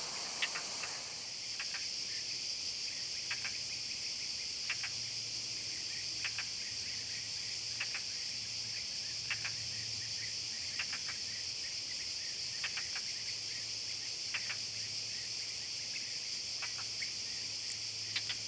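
Insects chirring in a steady high-pitched drone, with short faint ticks about once a second and a faint low hum coming and going.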